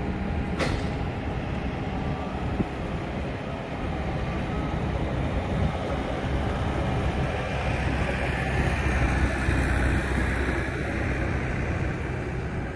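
Airport apron noise: a steady rumble and hiss of jet aircraft, swelling a little around eight to ten seconds in. A single sharp click sounds just under a second in.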